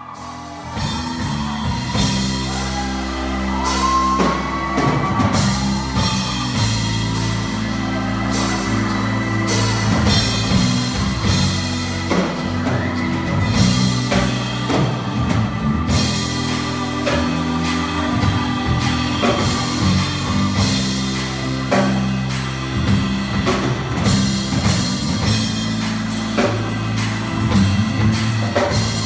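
Live band playing an instrumental passage with drum kit, bass and guitar at a steady beat.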